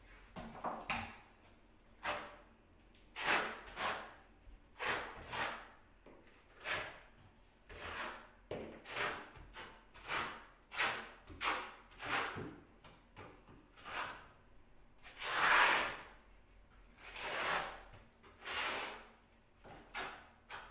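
A trowel scraping tile adhesive across a wall in repeated short strokes, about one a second; one longer, louder stroke comes about three-quarters of the way through.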